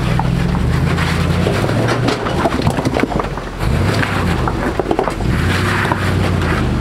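Off-road 4x4 truck's engine working under load as it climbs a rock, its revs dipping about two seconds in and picking up again about a second and a half later, with scattered knocks and scrapes of tyres and underside on stone.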